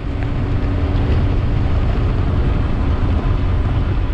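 Kawasaki Mule Pro FXR side-by-side driving along a rough gravel desert trail: a loud, steady low rumble of its three-cylinder engine and drivetrain, with tyres crunching over stones.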